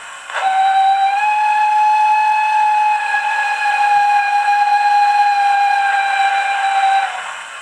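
Model BR 9F steam locomotive's sampled steam whistle, played by its Zimo sound decoder through an Ice Cube speaker: one long, steady whistle of about six and a half seconds over a constant background hiss.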